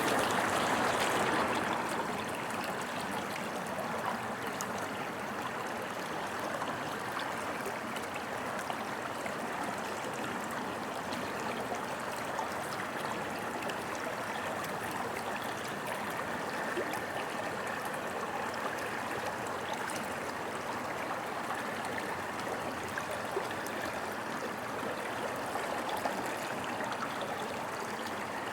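Mountain river flowing: a steady rush of water with faint small splashes, slightly louder in the first couple of seconds.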